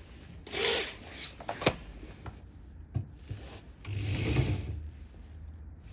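Scraping and rubbing noises with a few sharp clicks, the loudest stretch of rubbing about four seconds in.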